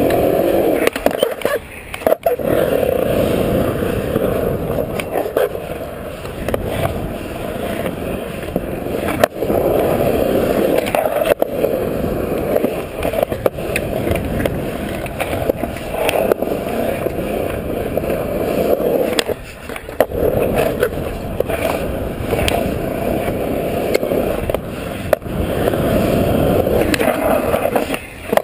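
Skateboard wheels rolling over concrete, a continuous gritty rumble carried close through the board. A few sharp clacks of the board and trucks hitting or landing break in, and the rumble drops out briefly a few times.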